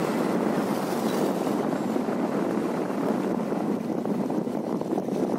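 Steady wind rush on the microphone of a phone carried on a moving motorcycle, with road noise blended in.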